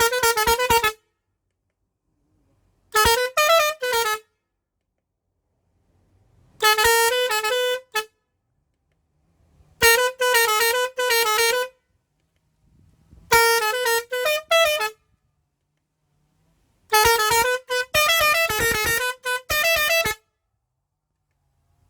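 Multi-tone musical bus horn playing a short melodic phrase six times, each a rapid run of notes lasting one to three seconds, separated by silence.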